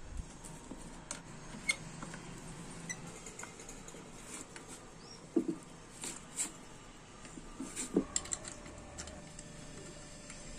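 Scattered light metal clicks and rattles of a TVS 50 moped's clutch assembly and rubber drive belt being handled and fitted by hand, with a few sharper clinks a little past the middle.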